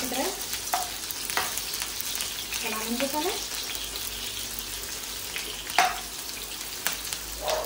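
Chopped onions sizzling in hot oil in a nonstick frying pan, stirred with a slotted spatula that scrapes and clicks against the pan a few times.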